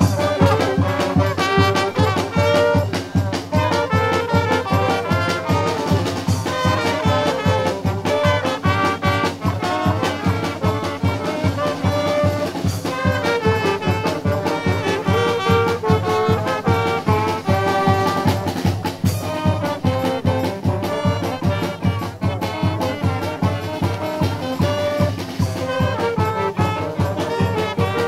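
Live brass street band playing a tune: trumpets and trombones carry the melody over a low brass bass line and a steady, even drum beat.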